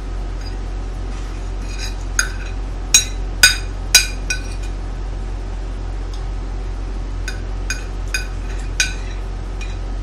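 Metal cutlery clinking and scraping against a plate: about nine sharp clinks in two bunches, the loudest a few seconds in, over a steady low hum.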